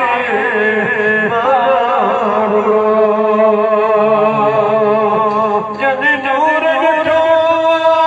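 A man's voice chanting a melodic religious recitation through a microphone, in wavering, ornamented lines that settle into long held notes in the second half.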